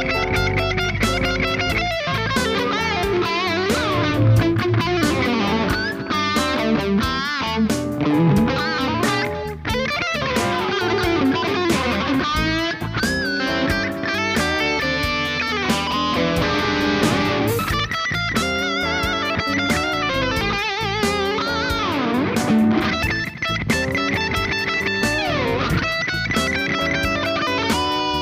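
Distorted electric guitar playing bluesy lead lines with bends and vibrato, set in a full mix. The guitar is an Ibanez Jem going through a Kemper profile of a 1959 Marshall Super Lead 100-watt plexi.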